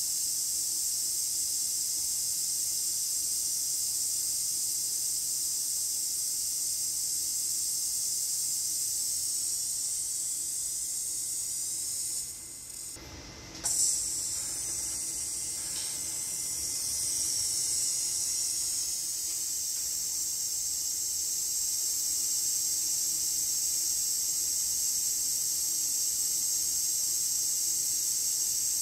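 Steady high-pitched hiss of machinery with faint whines that slowly shift in pitch, over a low hum: a robot arm and belt conveyor running as the arm picks and places puzzle pieces. The sound drops briefly about twelve seconds in and comes back with a sharp click.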